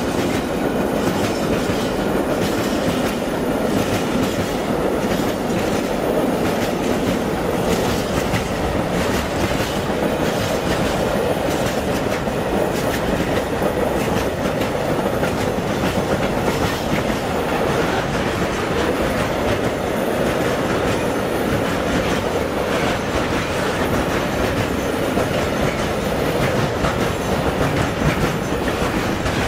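Long freight train of open box wagons rolling past at close range: a steady rumble of steel wheels on the rails, with repeated clicks as the wheels cross the rail joints.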